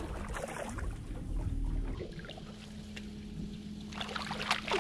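Electric trolling motor humming steadily, with water lapping at the hull. Near the end, sharp splashing as a hooked smallmouth bass thrashes at the surface beside the boat.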